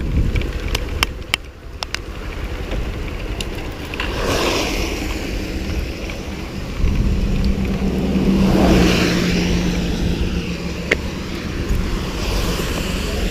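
Road traffic: a steady low rumble, with vehicles passing about four seconds in and again near nine seconds, the second with an engine note.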